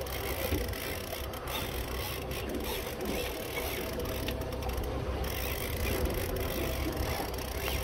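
Fishing reel being cranked to bring a hooked tuna up to the boat, with scattered light clicks, over the steady low hum of the boat's motor running slowly in gear.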